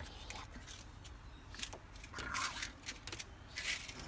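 A sulphur-crested cockatoo's claws scraping and shuffling on a hard plastic lid as it turns around: a handful of short scratchy scrapes.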